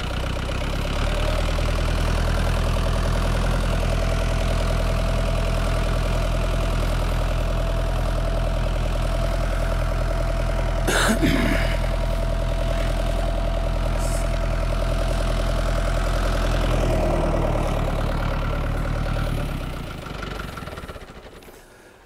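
Tractor engine running steadily, with a brief knock about halfway through. The engine sound falls away over the last couple of seconds.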